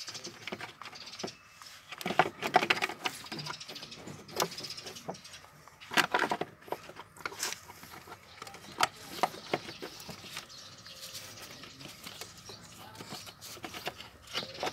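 Hand tools and metal engine parts clicking, clinking and knocking on a scooter engine, in irregular bursts, loudest about two and six seconds in.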